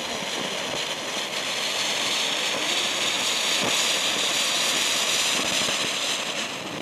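Ground fountain firework burning: a steady, high hiss of spraying sparks with faint crackles, swelling a little louder after the first couple of seconds.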